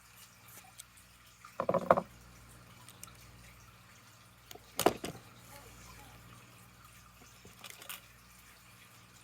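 Trigger lock and gun being handled: a brief clattering rattle, then a single sharp click a few seconds later, then a fainter pair of clicks near the end.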